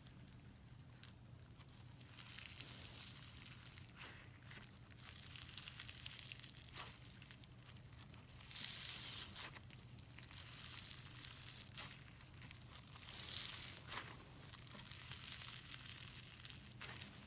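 Slime being squeezed and worked by hand, giving faint crackling and crinkling with scattered small clicks and pops. It swells three times, about two, nine and thirteen seconds in.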